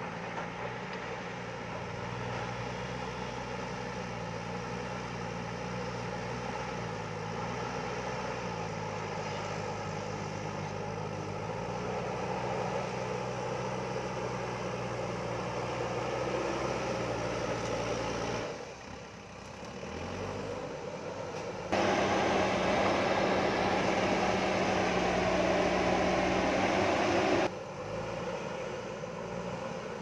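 JCB backhoe loader's diesel engine running while the backhoe arm digs, its pitch shifting as the load changes. It dips briefly about two-thirds of the way in, then runs markedly louder and higher for about five seconds, starting and stopping abruptly.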